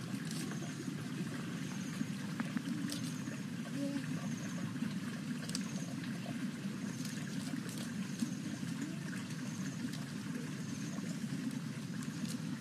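Outdoor ambience: a steady low rushing noise, with a short high chirp repeating about once a second and a few sharp clicks.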